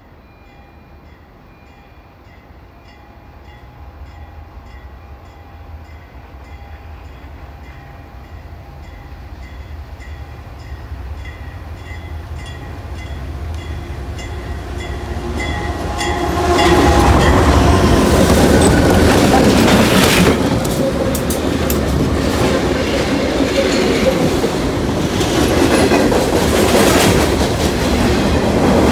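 Pan Am Railways freight train led by six diesel locomotives approaching and growing steadily louder. About 16 seconds in, the locomotives pass close by with a sudden jump in loudness, then boxcars roll past with wheels clacking over the rail joints.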